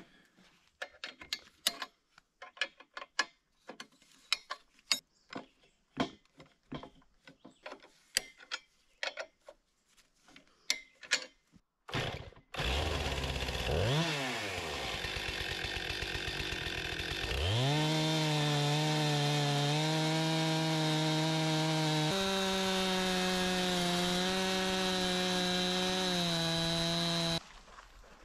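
A few scattered clicks and clanks from handling the chainsaw mill's metal frame. Then a Stihl chainsaw mounted in a chainsaw mill starts running about twelve seconds in and revs up to a steady high pitch as it rips along a log, before cutting off abruptly near the end.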